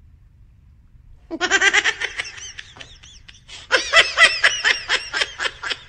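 Laughter: a quick run of short 'ha-ha' bursts starting about a second in. It breaks off briefly, then starts again louder.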